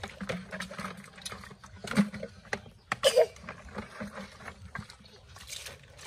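Water splashing and dripping over a plastic toy dump truck as it is washed by hand, with scattered small knocks. Louder sharp splashes or knocks come about two and three seconds in.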